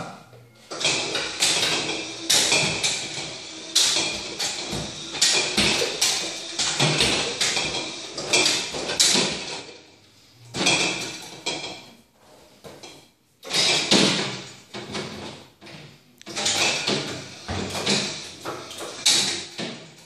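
Electric stair-climbing hand truck working a refrigerator along concrete steps: its motor runs in spells, with repeated clunks and scraping knocks as the wheels go over the step edges, and brief pauses between spells.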